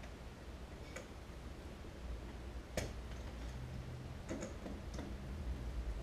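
A few faint, sparse clicks and taps of a small screwdriver and metal terminal hardware as a wire is fastened to a screw terminal of a Square D drum switch, over a low hum.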